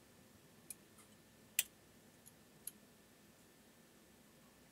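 A few light, sharp clicks and taps of small parts or tools being handled, five in all over about two seconds, the loudest about a second and a half in.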